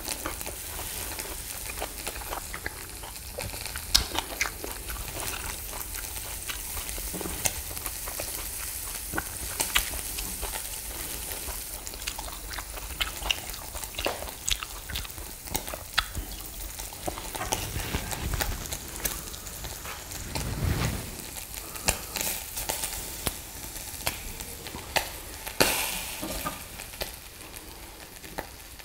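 Beef rib meat sizzling on a mini brazier grill: a steady hiss with frequent small pops and clicks.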